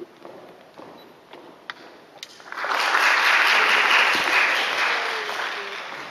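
Audience applauding in a concert hall: a few faint clicks, then clapping that swells about two and a half seconds in and fades away near the end.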